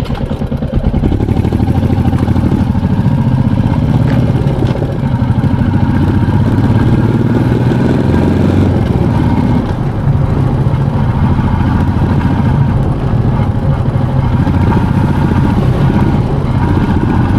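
Motorcycle engine running steadily while riding, with a continuous low throb of its firing pulses.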